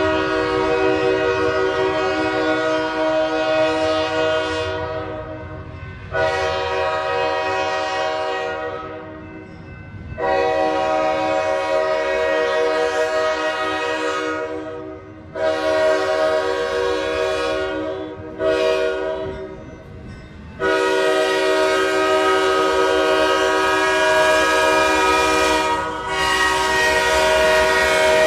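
A diesel locomotive's multi-chime air horn blows six blasts, several notes sounding together. The last four go long, long, short, long, the pattern blown for a grade crossing, and the final blast is held for several seconds.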